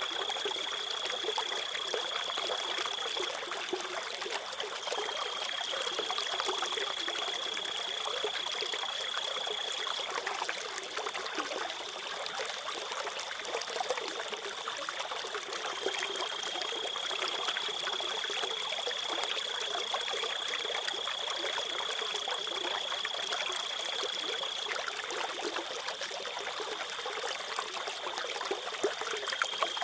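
Crickets trilling on one steady high note, in long spells that break off and start again, over a trickling stream.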